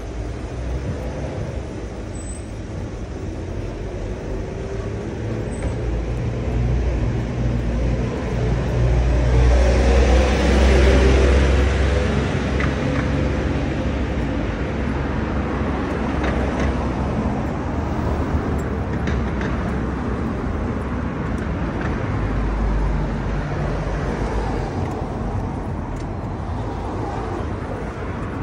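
Road traffic passing along the street, a steady hum of car engines and tyres. It swells as a vehicle passes close by about ten seconds in, the loudest moment, then eases back.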